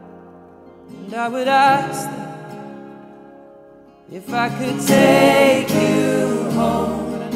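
Slow, gentle music: a melody line with vibrato over held lower notes, in two phrases, the second and louder one starting about four seconds in.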